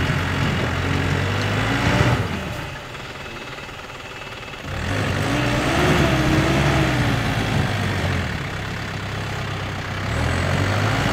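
A 4x4 pickup's engine running as it crawls over a rutted dirt hill track. It eases off for a couple of seconds, then revs up and down as it works over the ruts.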